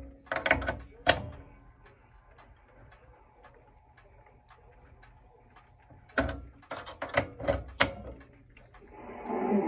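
Sharp clicks and crackles from a 1920s radio receiver's panel jack as the loudspeaker plug is pulled out and pushed back in, the broadcast cutting off at the start and coming back near the end. A faint low hum runs in the gap.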